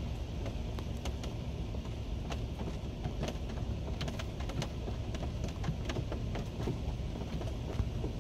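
Hailstones striking a concrete sidewalk: a scattered run of sharp, irregular ticks over a steady low rumble.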